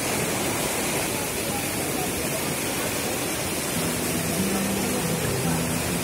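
Rushing white water of a rocky river, a steady even hiss of falling and tumbling water.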